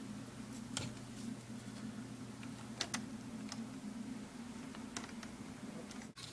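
Scattered small plastic clicks and taps from handling a laptop's screen assembly and its screws, a few seconds apart, over a steady low hum.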